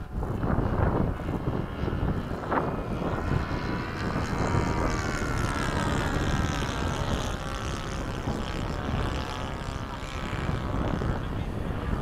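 A radio-controlled model jet's motor whine, its pitch falling slowly over several seconds, over heavy wind buffeting on the microphone.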